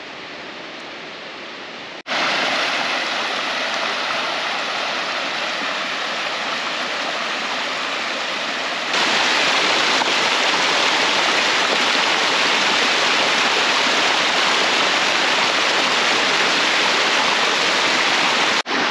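Rushing water of a waterfall, a steady hiss with no pitch to it. It jumps louder suddenly about two seconds in and again about nine seconds in, with a brief drop just before the end.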